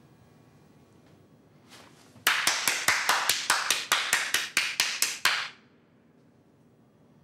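A rapid, even run of about fifteen sharp smacks, roughly five a second, lasting about three seconds and then stopping.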